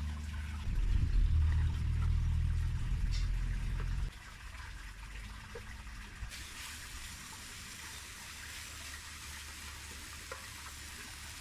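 Minced chicken sizzling and frying in a stainless steel wok, an even hiss that grows a little about six seconds in, with a couple of light clicks of a plastic spatula against the pan. A loud low rumble fills the first four seconds and cuts off suddenly.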